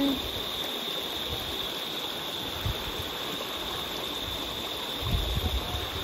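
Shallow river water running and splashing over rocks, with a steady high-pitched tone above it. Low rumbling buffets come in near the end.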